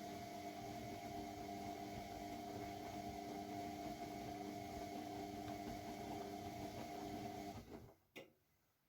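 AEG Lavamat W 1450 washing machine running with a steady hum made of several fixed tones. The sound stops abruptly near the end, followed by a single click.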